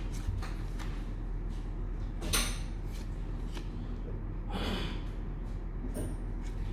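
Trading cards being handled: a few short swishes of cards sliding against each other, one longer about two-thirds of the way in, over a steady low hum.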